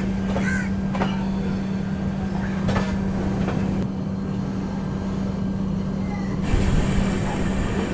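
Express passenger train heard from inside a coach: a steady hum with a few sharp clicks. The noise changes abruptly about six and a half seconds in, with a high whine joining.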